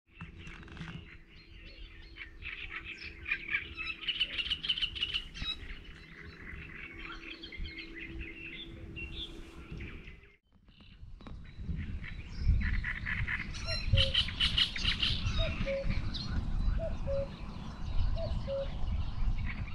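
Outdoor birdsong: many small birds chirping and singing. The sound drops out briefly about halfway through, then the birdsong resumes over a gusty low rumble of wind on the microphone.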